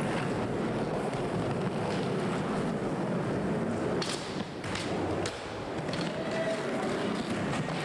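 Skateboard wheels rolling on a hard indoor floor, with several sharp clacks of the board between about four and seven seconds in.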